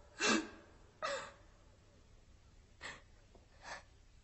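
A woman gasping twice, the second time with a falling sigh, then two short, fainter breaths.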